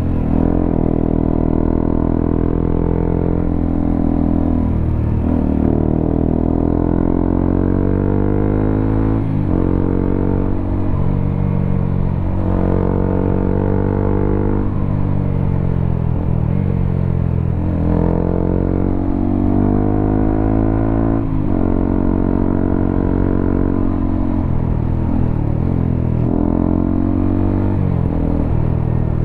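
Honda CBR motorcycle with a WRX K3 oval aftermarket silencer on the stock header, riding under acceleration: the exhaust note climbs in pitch over a few seconds, drops sharply at each gear change, and climbs again, about eight times.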